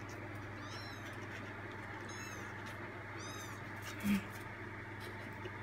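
Three-week-old kittens mewing: three short, high-pitched calls that rise and fall, over a steady low hum. About four seconds in there is a brief, louder low sound.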